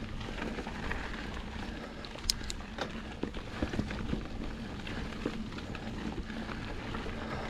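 Mountain bike rolling over a rough dirt trail: a steady rumble of tyres and frame with scattered clicks and rattles, one sharper click a little over two seconds in.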